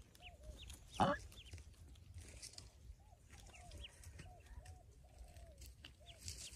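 Newly hatched Pekin ducklings and their hen calling in the nest: a run of short, repeated high peeps and softer lower arched calls, about two or three a second. One brief louder sound about a second in.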